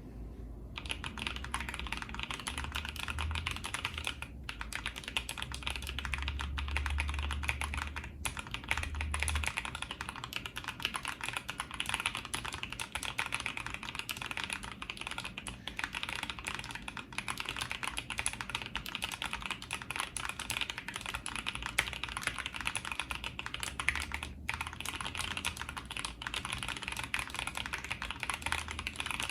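Continuous typing on a KBDFans Maja mechanical keyboard with lubed Boba U4T tactile switches, a brass top-mounted plate and PBT keycaps: a dense, even stream of keystrokes. It starts just under a second in and has a few brief pauses, about 4, 8 and 24 seconds in.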